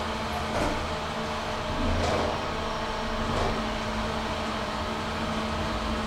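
Elevator running: a steady electric hum over a low rumble, with a few faint knocks.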